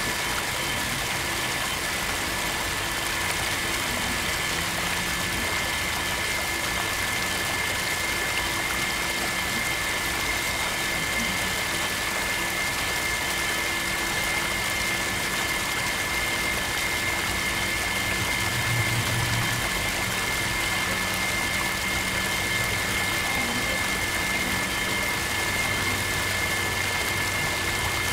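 Small battery-powered DIY water pump, a little DC motor, running steadily with a constant high whine as it pushes water through a plastic hose.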